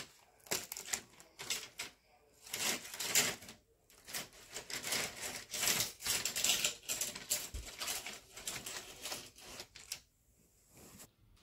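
Rapid, irregular clicking and light clattering in uneven clusters, stopping near the end.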